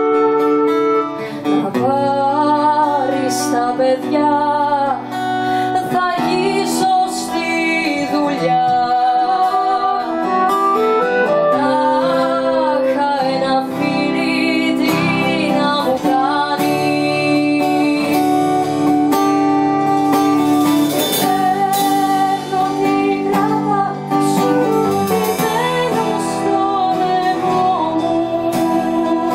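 Live band playing a Greek song: acoustic guitar strumming under a woman's singing voice and a flute melody.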